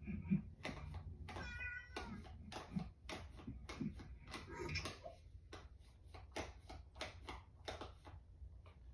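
A house cat meows once, briefly, about a second and a half in, close to the microphone. Irregular clicks and taps sound around it.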